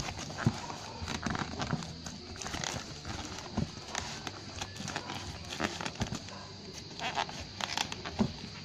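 Paper and plastic wrapping rustling and crinkling in irregular crackles as it is pulled off a hatchet's wooden handle.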